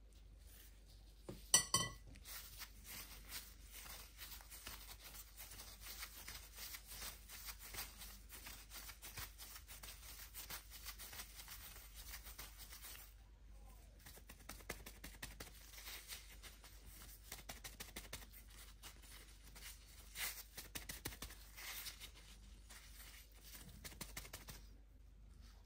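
Disposable plastic gloves crinkling and rustling as hands roll a ball of soft dough. A metal spoon gives one ringing clink about one and a half seconds in.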